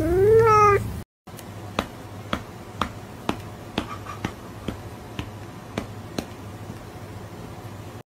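A single cat meow, rising then falling in pitch. After a short break, soft clicks come about twice a second over a faint hiss.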